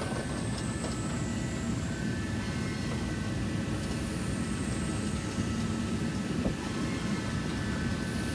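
Steady low rumble of outdoor background noise, like distant traffic or a passing aircraft, with a faint high whine over it.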